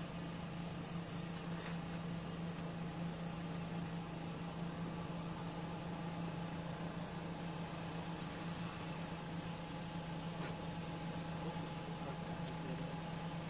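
Steady low hum with a fainter higher tone over constant background noise, unchanging throughout.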